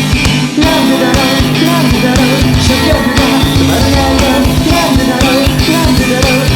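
Rock music with a driving drum kit; the band drops out briefly about half a second in and comes straight back in.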